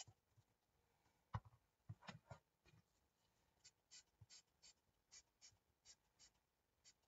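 Faint sounds of ink being worked onto a mixed-media craft piece. A soft knock comes about a second in, then a few taps, then a run of light, short scratchy dabs about three a second.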